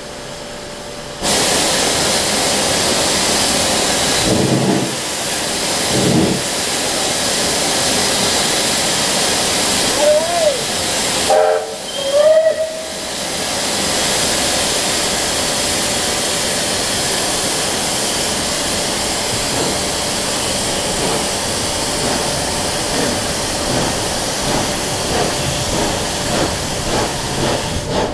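Steam locomotive letting off steam in a loud, steady hiss that starts suddenly about a second in. Near the end the hiss begins to pulse in a rhythm.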